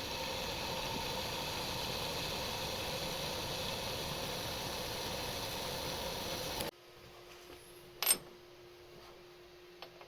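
Bandsaw running steadily on a new belt, its motor realigned so the pulley no longer rubs. The sound cuts off abruptly about two-thirds of the way through, leaving a faint steady hum and a single click.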